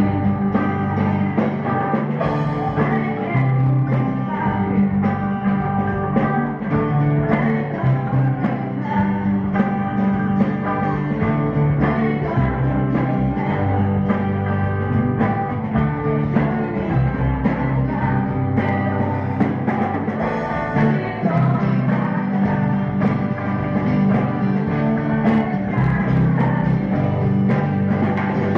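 Live rock band playing: electric guitars and bass with drums keeping a steady beat, and a singer's voice over the top.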